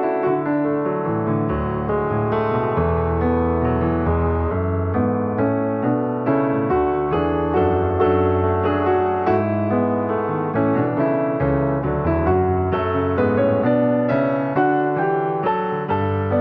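Piano music: a flowing melody of quick notes over held bass notes, at a steady level.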